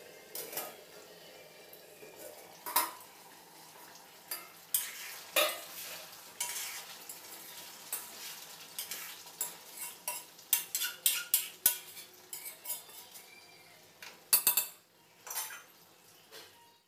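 A metal spatula clinking and scraping against a kadai as chicken curry is stirred, in many sharp knocks that come fast together partway through, with a stainless steel lid clattering as it is lifted off at the start. A faint steady sizzle of the cooking curry runs underneath.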